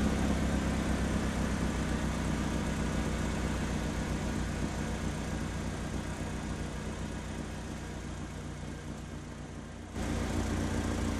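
A motor vehicle's engine running steadily with a low hum. It eases off slowly, then comes back louder about ten seconds in.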